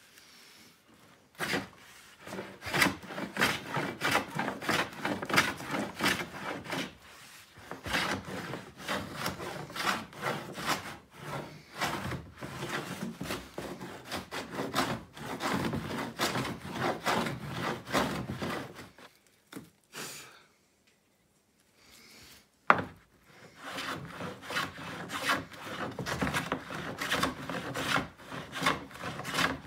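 Paramo edge plane cutting along a rebate in a softwood trim board: many short rasping strokes in quick succession, with a pause of a few seconds past the middle and a single sharp knock during it.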